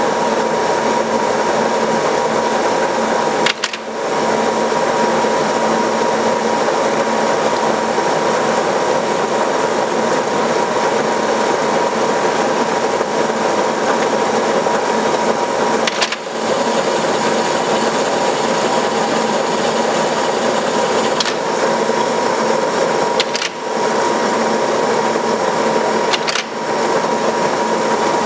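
1952 Brown & Sharpe automatic lathe running, turning small rivets, with a steady whine over a lower hum. The running sound briefly dips four times, each dip with a faint click.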